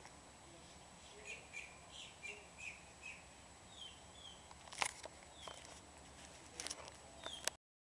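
Small birds chirping: a run of short, quick notes over steady outdoor background noise. In the second half come several sharp clicks, and the sound cuts out abruptly near the end.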